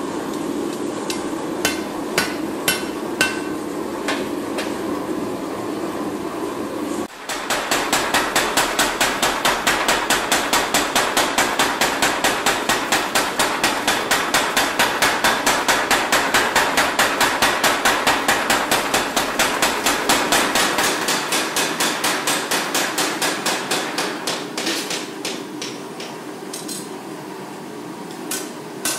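Hammer forging of a hot steel knife blade. At first there are a few separate hand-hammer blows on the anvil over a steady hum. About seven seconds in, a mechanical power hammer starts pounding the blade at an even four or so blows a second, then weakens and dies away, with separate hammer blows again near the end.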